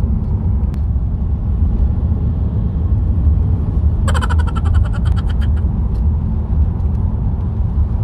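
Steady low road and engine rumble heard from inside a moving car's cabin. About halfway through, a short higher-pitched rattling sound lasts about a second and a half.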